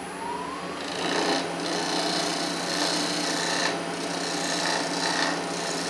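Hand-held turning tool scraping a wooden sphere spinning on a wood lathe: a steady rasping hiss over the lathe's hum, taking off the last small bump left where a stub was. A faint whine rises in the first second.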